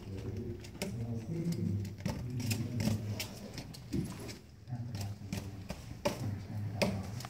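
Indistinct, low-pitched soundtrack of a projected video playing over a hall's loudspeakers, with scattered clicks.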